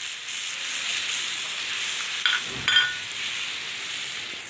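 Wet spice paste of soaked turmeric, chilli and coriander sizzling in hot mustard oil with onion and garlic in a nonstick pan: a steady frying hiss. Two sharp clinks a little over two seconds in.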